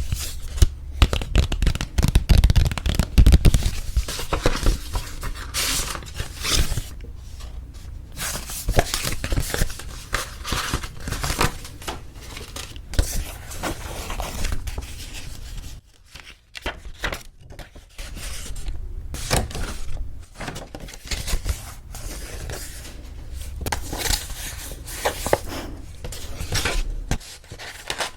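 Paper wedding-invitation cards and envelopes being handled and fiddled with at close range: irregular rustling, crinkling and scraping of stiff paper, with some louder handling thumps in the first few seconds and a short lull midway.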